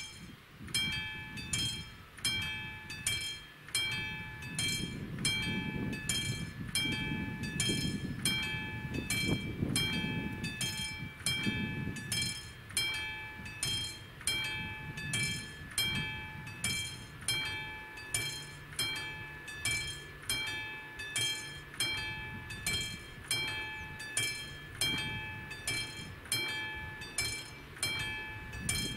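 Level-crossing warning bell of an AŽD 71 signal ringing in evenly repeated strikes, starting just as the red lights begin to flash: the crossing has been activated for an approaching train.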